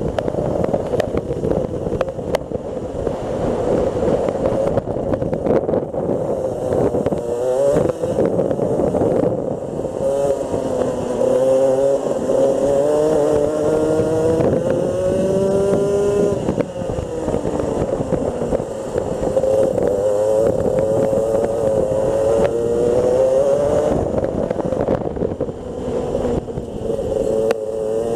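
Rotax Senior Max 125 cc single-cylinder two-stroke kart engine under racing load, heard close up from on board. Its pitch climbs for several seconds at a time as it accelerates down the straights and drops away as the throttle is lifted for corners, about halfway through and again near the end. A steady rushing noise runs under it.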